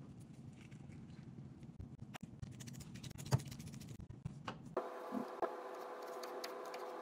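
Avocado flesh being scooped and mashed in a small bowl: soft squishing and scraping with scattered small clicks. About five seconds in, a knife cuts through a tomato onto a plastic cutting board with a few sharp taps, over a steady hum.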